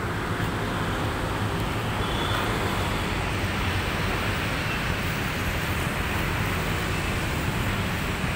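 Steady background rumble and hiss of road traffic, with no single event standing out.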